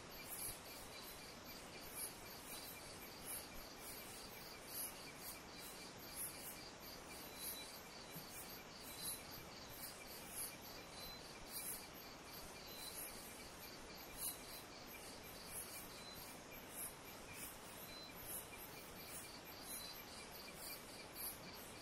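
Faint crickets and other insects chirring, a steady high chirping that pulses over and over, over an even soft hiss.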